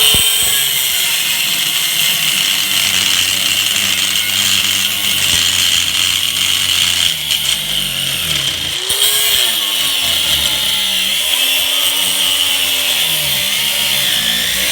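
Angle grinder with a cutoff wheel cutting a slot into the head of a steel bolt: a loud, steady grinding hiss over the motor's hum, the motor's pitch sagging and recovering a few times as the wheel is pressed into the metal.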